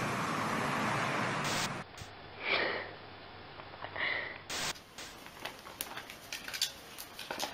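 Domestic cat meowing twice, short calls about two and a half and four seconds in, the first falling in pitch. Before them is a steady rushing noise, and after them scattered light clicks and taps.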